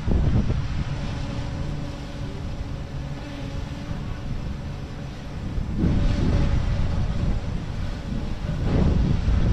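Wind buffeting the microphone: a gusty low rumble that eases a little in the middle and picks up again about six seconds in, with a faint steady hum underneath.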